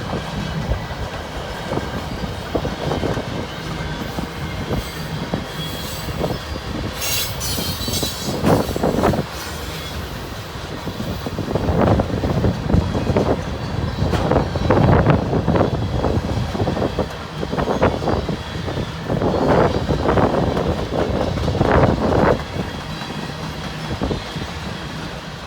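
Railcars of a passing train rolling by: a steady rumble with repeated clacking of wheels over the rail, and a brief high wheel squeal about seven seconds in.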